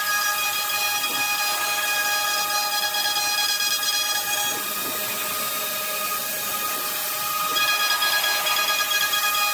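CNC router spindle running with a steady high-pitched whine over a hiss of cutting. The pitch shifts and it grows slightly quieter about halfway through, then returns to the first pitch near the end.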